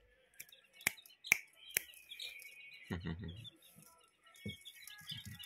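Bantam chicks peeping in short, high chirps. Three sharp clicks come in the first two seconds, and there is a soft rustle of handling about three seconds in as a hand moves among the chicks.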